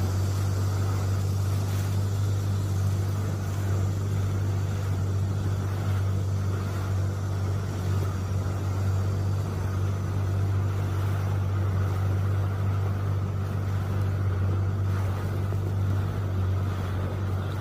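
An engine running steadily, a low even drone that holds throughout without revving up or down.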